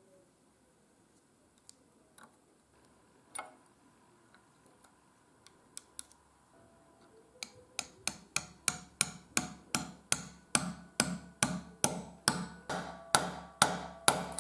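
Light hammer taps on a steel pin punch, driving a pin into the hub of a breast drill's drive gear. A few scattered clicks come first; then, about seven seconds in, a steady run of sharp taps begins, about three a second, growing louder.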